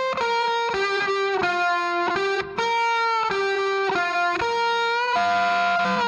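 Instrumental background music: a single melody of held notes, changing about every half second, with a brief drop about halfway through.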